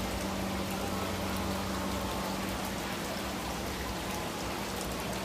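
Garden water fountain trickling and splashing steadily, with a low steady hum underneath.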